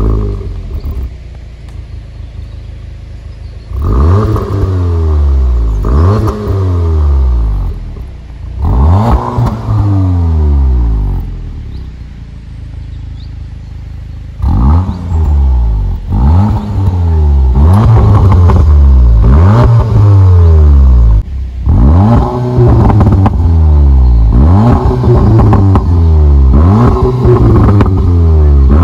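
Audi TTS's 2.0-litre turbocharged four-cylinder engine starting up, idling, and being revved with the car standing still, heard at the quad tailpipes. There are a few separate blips between about four and ten seconds in. From about fifteen seconds there is a quick run of revs, roughly one a second, each rising and falling back toward idle.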